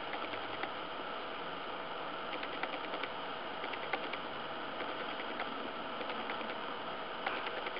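Short runs of soft clicking from a computer mouse's scroll wheel as a web page is scrolled, over a steady background hiss with a faint steady tone.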